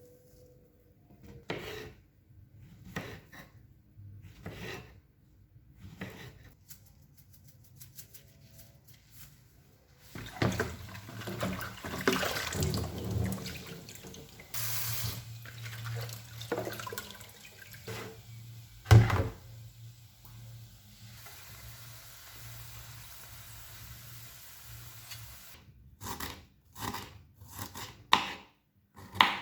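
Kitchen work with a tap running into a sink. Scattered knocks and clatter come first, then water runs for about ten seconds midway, with one sharp loud knock during it. A few more knocks come near the end.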